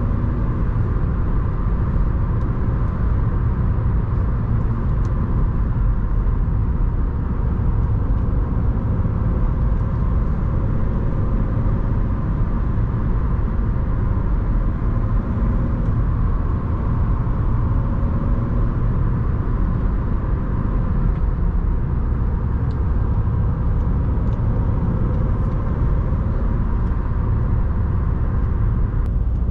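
Audi A1 1.6 TDI's four-cylinder diesel engine running steadily under way, with tyre and road rumble underneath.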